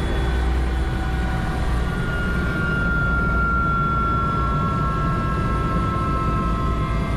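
Helicopter running, with a steady rumble and a high whine that drifts slightly lower in pitch.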